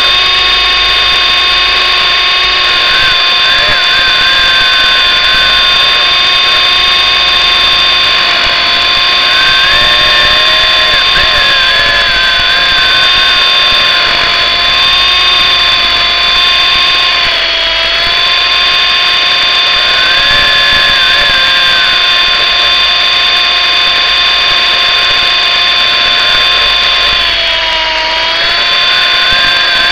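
MJX F45 electric RC helicopter's motor and rotor whining steadily, heard close up from on board. The pitch dips briefly just past halfway and again near the end as the throttle eases.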